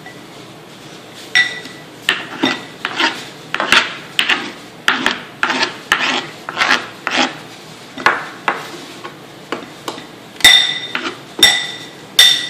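Knife scraping diced onion off a cutting board into a bowl in a run of short strokes, about one or two a second. A few ringing clinks of the blade against the bowl come near the start and again near the end.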